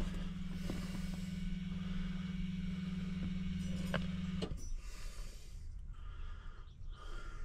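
Electric fuel pump humming steadily as it primes at key-on, before the swapped LS V8 is cranked, cutting off about four and a half seconds in.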